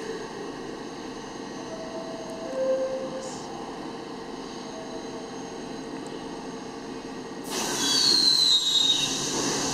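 R62-series subway train starting to pull out of an underground station: a steady electrical hum with a few faint short tones. About seven and a half seconds in, a sudden louder rush of rail noise sets in, with a brief high wheel squeal.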